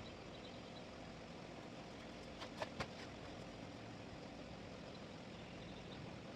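Steady hum of a running motor or engine, with a few sharp clicks a little past two seconds in.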